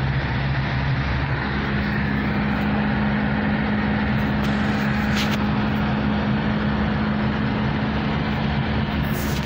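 Steady road and engine noise heard from inside a moving car. A low engine hum steps up to a higher steady tone about a second and a half in.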